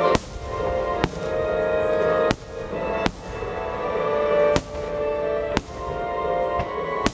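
Aerial firework shells bursting overhead: about seven sharp booms at uneven intervals, roughly one a second.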